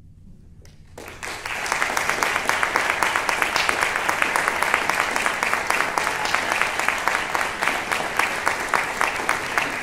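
Audience applause, starting about a second in after a quiet moment and carrying on steadily as dense clapping.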